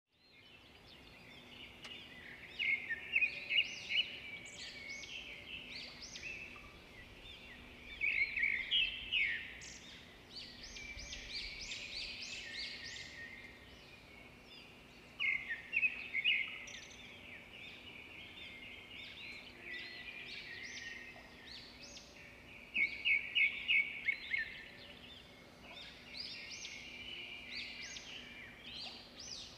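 Small birds chirping and singing in repeated bursts of quick, high notes, with a faint steady hum underneath.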